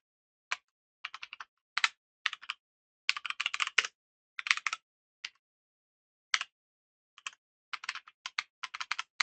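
Typing on a computer keyboard: bursts of quick keystrokes in irregular runs, with short pauses between them.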